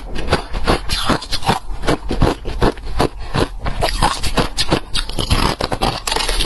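Close-up chewing of ice, a rapid, continuous run of crisp crunches, several a second.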